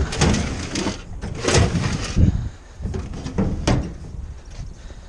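An old toolbox being shoved and knocked into place in a pickup truck bed: a series of scrapes and clunks over the first four seconds, then quieter.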